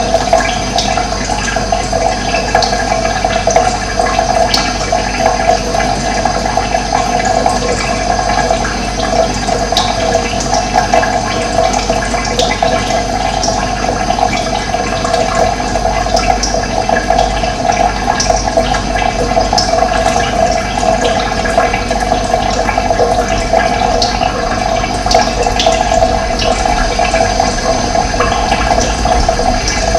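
Running water flowing steadily, a continuous rushing sound.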